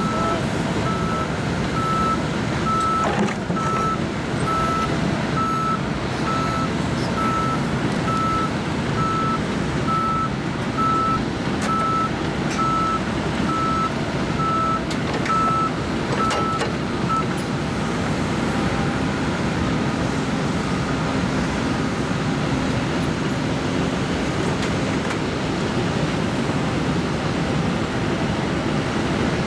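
Diesel engine of a John Deere 710L backhoe loader running steadily, with a reversing alarm beeping in a steady rhythm that stops a little past halfway through.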